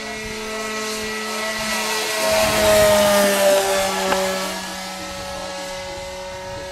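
Radio-control model airplane's motor and propeller whining as it flies overhead, growing louder, then dropping in pitch as it passes about three seconds in, and running on steadily as it moves away.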